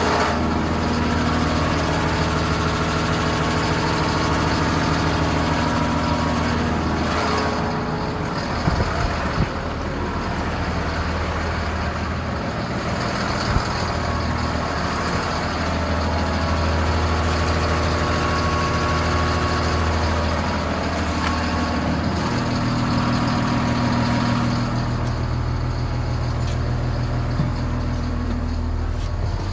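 Caterpillar front wheel loader's diesel engine idling steadily, heard close to the machine. A few light knocks come about a third of the way in.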